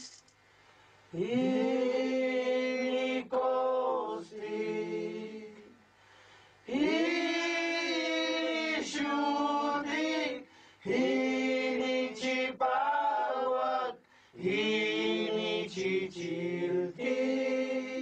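Ceremonial vocal chanting in a cave: about eight sustained sung phrases, each one to three seconds long, with bending pitch and short pauses between them, the notes echoing off the cave walls.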